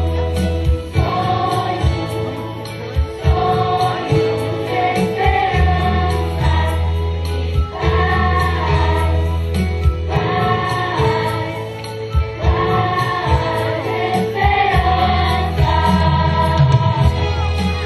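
Children's choir singing in unison, holding long notes over an accompaniment with a steady bass.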